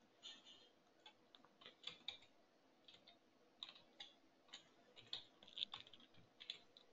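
Faint, irregular clicks of a computer keyboard and mouse as code is selected and copy-pasted.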